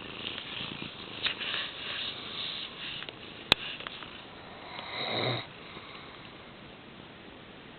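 A man snoring in his sleep: noisy snoring breaths over the first three seconds and another snore about five seconds in. A single sharp click about three and a half seconds in is the loudest sound.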